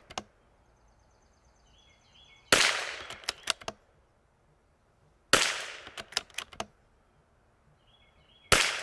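Three .22 LR rifle shots, about three seconds apart, each a sharp crack with a short tail. Each is followed by a quick run of clicks as the rifle's bolt is worked for the next round.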